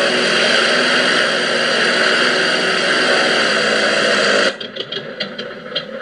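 Simulated radial aircraft engine sound from a model Corsair's onboard sound card, played through speakers in the wing, running loud and steady, then cutting off suddenly about four and a half seconds in. A few scattered pops follow.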